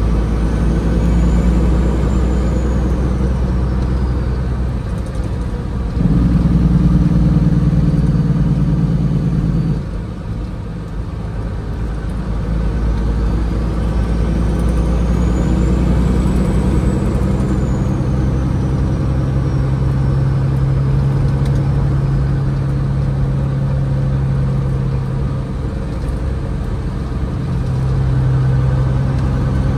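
1998 Peterbilt 379's diesel engine running steadily as the truck drives, heard in the cab. It gets louder about six seconds in and eases back off about four seconds later.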